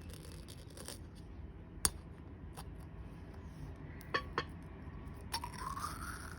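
Faint handling of dishes and utensils: a few light clicks and taps, then a short rising squeak near the end.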